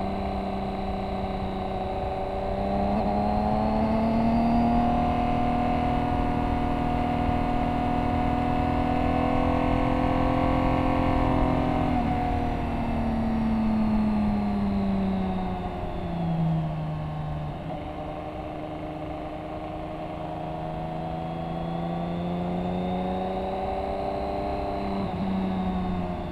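BMW K1600 GT's inline-six engine heard from on the bike while riding at speed on a race track, over steady wind and road noise. The engine note rises a few seconds in, holds, falls away through the middle, then climbs again and drops back near the end.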